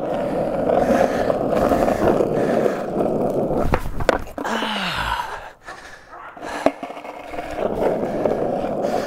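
Skateboard wheels rolling on asphalt, a steady rumble with a few sharp clacks, easing off about halfway through. A short falling tone sounds around the middle.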